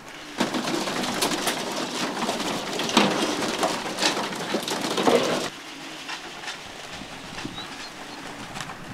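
A flock of racing pigeons flapping and clattering their wings as they crowd onto the loft's landing board and in through the hatch, with some cooing. The wing noise is loudest for the first five seconds or so, then drops to a quieter scatter of flutters.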